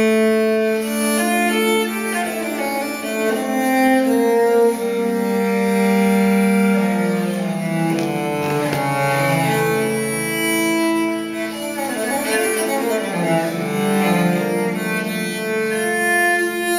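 Recorded music of bowed strings, low cello-like lines, playing through Infinity Alpha 30 hi-fi loudspeakers. The notes are long and held, some with a wavering vibrato.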